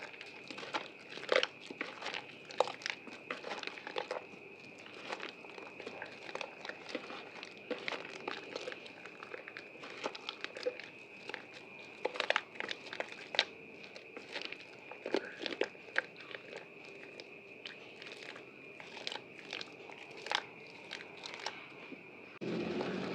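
Wet, soaked white bar soap being worked and lathered by hand, giving dense, irregular crackling and crinkling clicks. A faint steady high tone runs underneath, and just before the end a louder steady rushing noise comes in.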